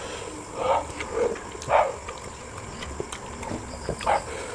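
Eating mouth sounds while working on spicy braised chicken feet: four short, separate slurps and smacks, three in the first two seconds and one more near the end.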